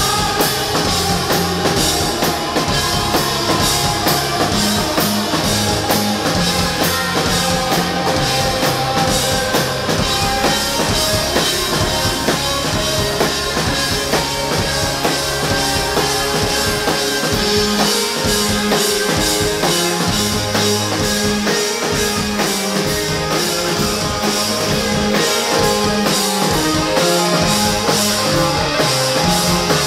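Live rock band playing loudly, with a drum kit, electric guitars and keyboards, heard from among the audience in the room.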